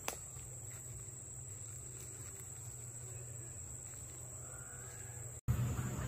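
Insects trilling steadily at a high pitch over a low, even outdoor rumble. The sound cuts off suddenly near the end and gives way to a louder, busier sound.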